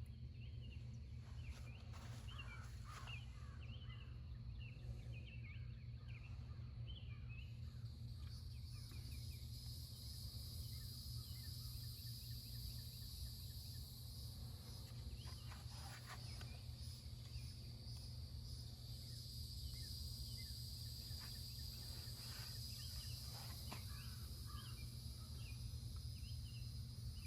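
Faint outdoor ambience: birds chirping and insects trilling, with a steady high insect drone coming in about eight seconds in, over a low steady rumble.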